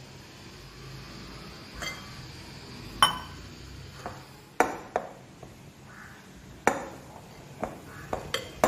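Hands kneading soft dough in a glass mixing bowl, with sharp clinks at irregular intervals as the fingers and rings knock against the glass.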